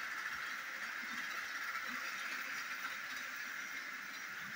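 Battery-powered Plarail toy train fitted with a Torque Tuned 2 motor, running around plastic track with a steady whirring buzz from its motor and gearbox.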